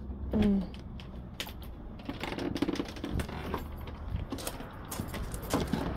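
Irregular light clicks and taps, scattered through the whole stretch without a steady rhythm, with a short murmured voice sound about half a second in.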